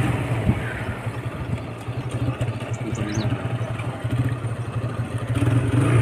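Motorcycle engine running steadily while riding along a road.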